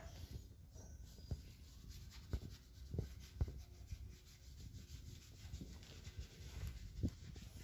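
Faint rubbing and scrubbing at a motorcycle's front wheel and tyre as it is hand-cleaned, with a few soft knocks along the way.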